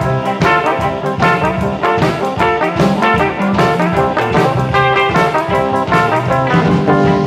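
Instrumental passage of upbeat music with a steady beat and horn-like parts, no singing.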